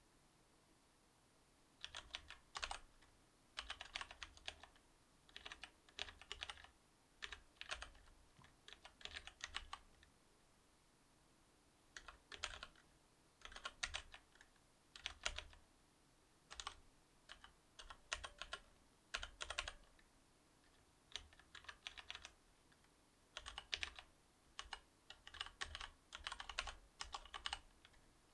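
Typing on a Cherry MX Board 8.0 mechanical keyboard with Cherry MX Silver linear switches: quick runs of keystroke clacks in short bursts with brief pauses between them.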